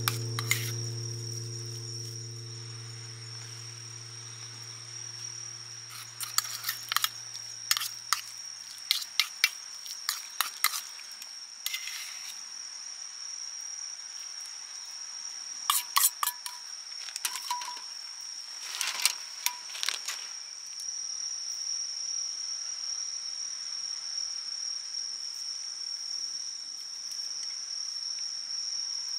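Crickets chirping in one steady high tone, with a utensil clicking and scraping against a small steel pan and a ceramic dish in clusters of sharp clinks as food is mixed and plated.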